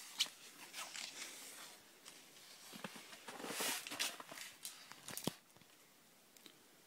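Handling noise in a small room: rustling and scattered clicks and knocks, with a sharp click about five seconds in, after which it falls quiet.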